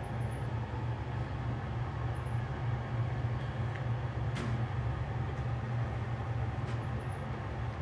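A steady low mechanical hum, with a few faint, short, high chirps and a couple of light clicks.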